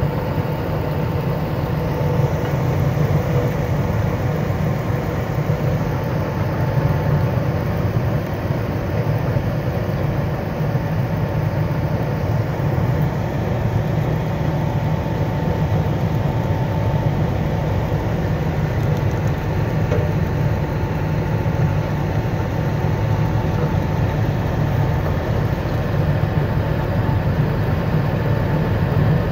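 Hagedorn Extravert manure spreader unloading snow, powered by a New Holland T7250 tractor: a steady mechanical drone as the spreader grinds up ice chunks and throws the snow out.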